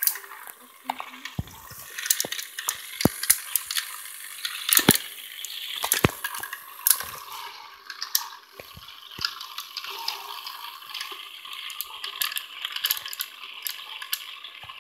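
Water churning and swirling in a tall glass as a spinning tornado vortex, a steady splashy hiss, with frequent sharp clicks and knocks throughout.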